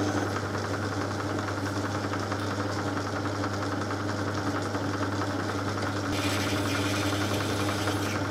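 Metal lathe running steadily with a low hum while a twist drill in the tailstock bores into the end of a spinning stainless steel bar. About six seconds in, the sound turns brighter and hissier.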